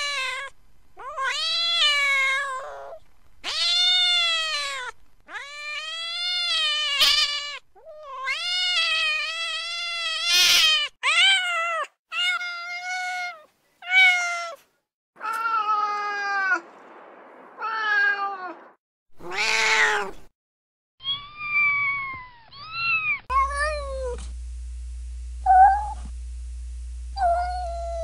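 Domestic cat meowing over and over, a dozen or so drawn-out meows each rising then falling in pitch, with short pauses between. In the last few seconds shorter, choppier meows come over a steady low hum.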